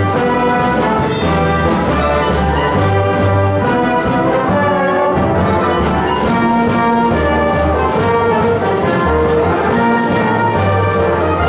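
Live pit orchestra playing an instrumental passage of a stage musical, with full sustained chords over a moving bass line.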